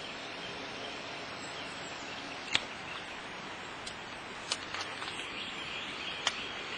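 Steady outdoor background hiss with a few sharp clicks, the loudest about two and a half seconds in.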